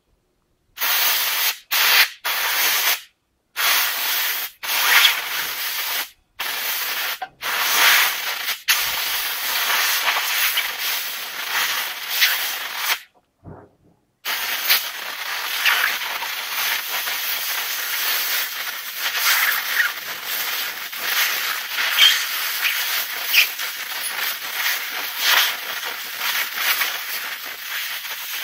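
Compressed-air blow gun hissing as it blows dust out of a walk-behind tractor's cylindrical paper air filter: a run of short blasts over the first half, a brief pause, then a steady blast.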